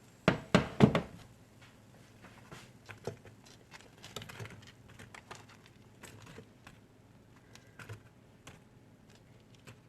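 Three sharp knocks in quick succession about half a second in, then scattered light clicks and taps: objects being handled in a kitchen.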